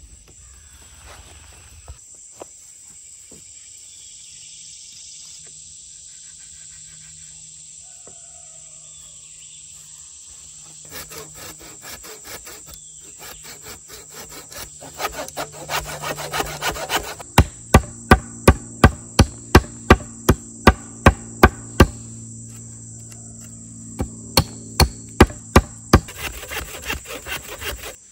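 A folding hand saw cutting through a green wooden pole in quick, rasping strokes. Then two runs of sharp hatchet strikes on the wood, about three a second, the first longer and louder than the second.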